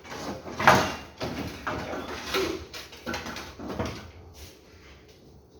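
A string of irregular knocks and scrapes, about six in the first four seconds, the one a little under a second in the loudest, dying down after that.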